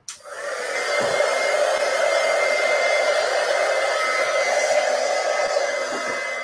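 Handheld hair dryer switched on and running steadily, a loud even rush of air with a faint high whistle. It is the crafter's drying tool, used to dry chalk paste and paint.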